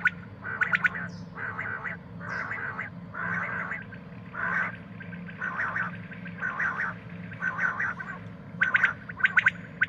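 Common quail calling: a run of short raspy notes, each less than a second after the last. Near the end comes a fast burst of rapid clicking notes.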